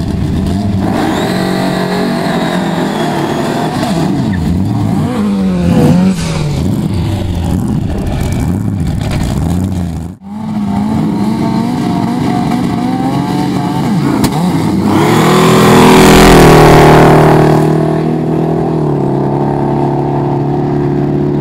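Drag cars' engines, among them a supercharged Volvo's, revving up and down at the start line. After a brief dropout the engines accelerate hard down the strip, rising to a loud surge near the end, then settling into a steady drone.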